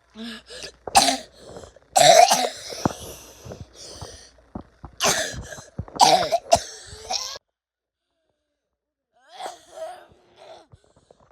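A person coughing hard and repeatedly in fits, a persistent cough that won't stop. The sound cuts to dead silence for about two seconds partway through, then a few quieter coughs follow.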